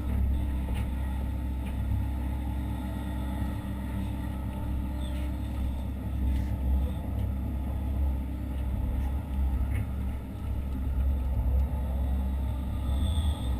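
Hitachi Zaxis 130 excavator's diesel engine running steadily, heard from inside the operator's cab, with a few faint clicks and knocks.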